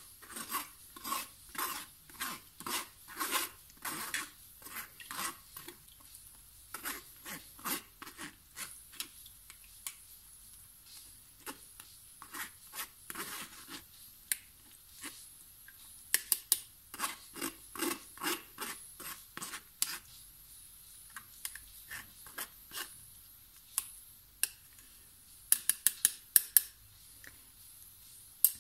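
A metal spoon scrapes and presses pureed lemon and orange pulp through a stainless steel mesh sieve in repeated short strokes, straining the lemonade. There are a few sharper clicks around the middle and near the end.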